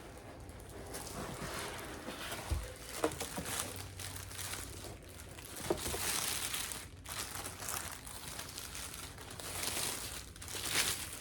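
Packaging crinkling and rustling as it is handled and pulled open by hand, in several surges, with a few light knocks.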